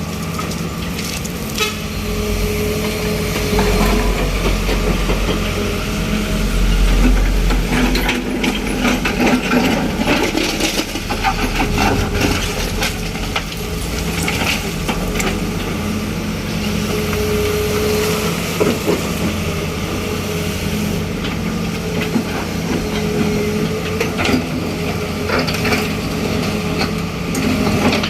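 Daewoo Solar 130W-III wheeled excavator's diesel engine running steadily, with a higher tone that comes and goes several times and scattered knocks and clanks throughout.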